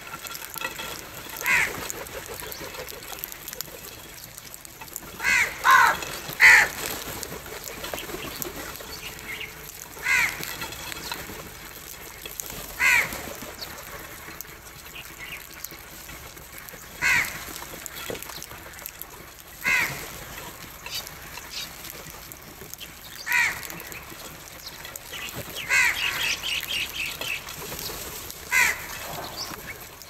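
House crows cawing: single harsh caws every few seconds, some in pairs, and a quick run of several calls a little before the end.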